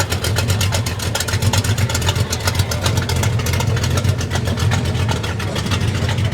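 Car engine idling, with rapid, even exhaust pulses and a strong low rumble.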